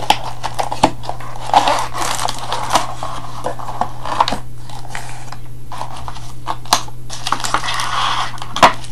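Product box and its contents being opened and handled by hand: a run of light taps, clicks, scrapes and rustles of cardboard, paper and plastic packaging.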